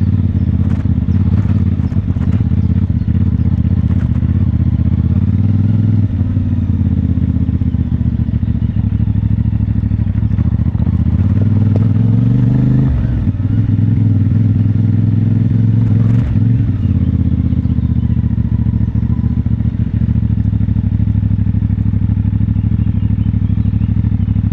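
CFMoto 450MT's parallel-twin engine running at low revs, with brief rises in revs about twelve and sixteen seconds in, and a few small knocks over it.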